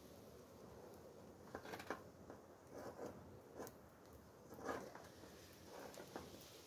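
Near silence, broken by about seven faint, scattered clicks and soft knocks from a small wood fire in a metal grill and a pan of greens being set on it.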